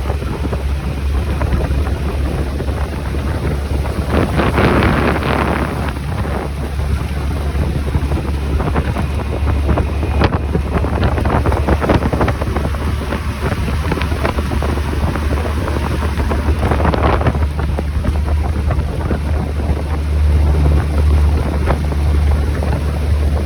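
A 25 hp Yamaha outboard on an aluminum boat running steadily under way, with wind rushing over the microphone and stronger gusts about five seconds in and again near seventeen seconds.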